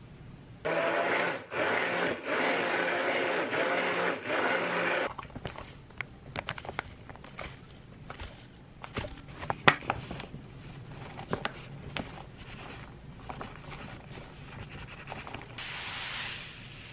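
A stick blender whirs for about four seconds, its pitch wavering, with two brief stops, as it blends a thick batter in a tall cup. Scattered clicks and taps of ingredients being handled follow, and near the end a soft hiss as granulated erythritol pours from a packet into a stainless-steel bowl.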